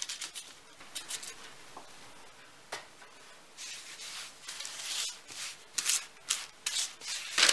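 Hands rubbing and patting a ball of bread dough on floured baking paper: a run of soft brushing and rustling strokes, thicker and louder in the second half.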